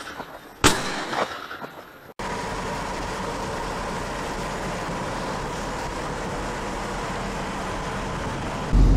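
A single shotgun shot cracks under a second in, with a short echo. The sound then cuts to steady engine and road noise heard inside a moving car, with a faint steady whine.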